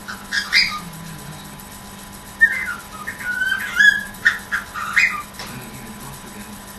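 Pet cockatiel chirping and whistling in short, irregular bursts of bird noises, with sharper calls at about two and a half and four seconds in.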